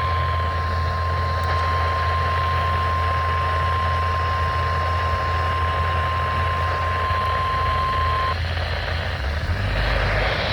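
NOAA Weather Radio 1050 Hz warning alarm tone: one steady high-pitched tone that cuts off about eight seconds in. A steady low hum and hiss run underneath. The tone is the alert that marks the start of an emergency weather broadcast.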